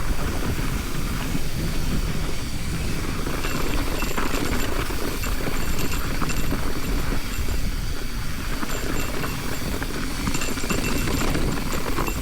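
Wind buffeting the camera microphone over the noise of mountain bike tyres rolling down a rough, rocky trail, steady throughout.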